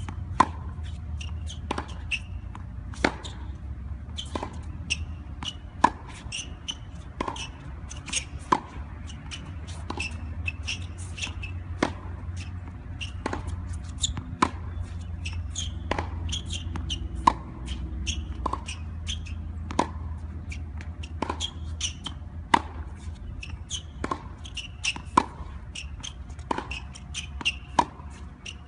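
Tennis rally on a hard court: sharp pops of racket strings striking the ball every two to three seconds, with fainter ball bounces and the other player's hits in between. A steady low rumble runs underneath.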